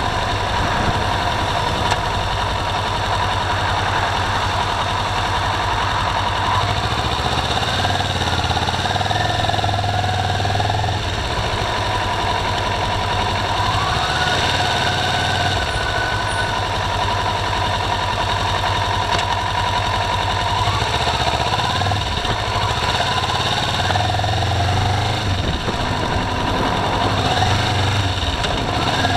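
Steady driving noise inside a car: the engine running and tyres on a wet road, with the engine note shifting up and down now and then.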